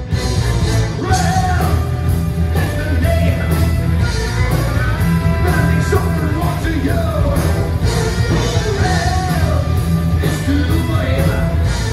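Live heavy metal band playing: electric guitars, bass and drums, with a sung vocal line coming in about a second in.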